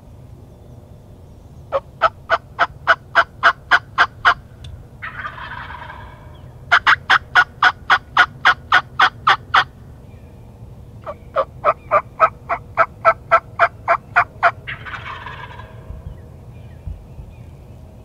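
Turkey call worked by a hunter, sounding three loud runs of about ten evenly spaced hen yelps, about four a second. After the first and the last run, a wild turkey gobbler answers with a short gobble.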